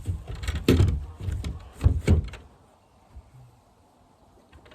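A handful of wooden knocks and thuds, five or so in the first two seconds, as a wooden coop door and its framing are bumped and shifted into place, then quiet.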